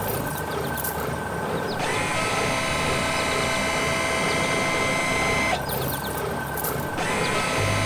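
A mechanical whirring and rattling, with a steady multi-tone whine that comes in about two seconds in, cuts out for about a second and a half, then returns near the end.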